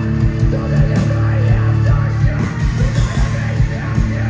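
A rock band playing heavy music live: distorted electric guitars over a fast, steady kick drum beat.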